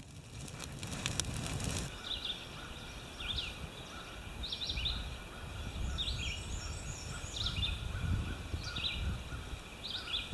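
A wood campfire crackles for about the first two seconds. After that, birds call and sing in short repeated chirps, with a quick run of high notes, over a low steady rumble.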